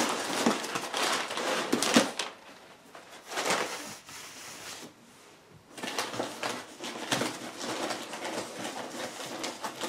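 Rustling and crinkling of packing material and cardboard as hands dig through a packed shipping box, in irregular bursts with a quieter spell around the middle.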